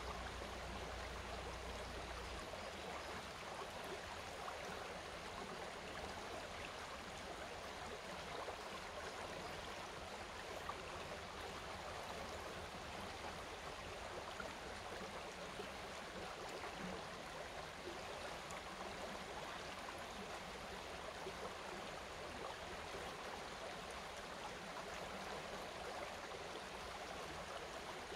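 Shallow forest stream flowing over stones, a steady rush of running water.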